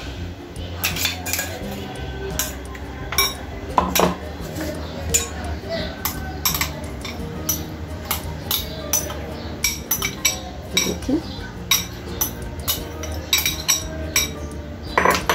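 Metal spoon clinking and scraping against a glass bowl and a steel mixer-grinder jar as boiled raw-mango pulp is spooned into the jar: a run of irregular sharp clinks.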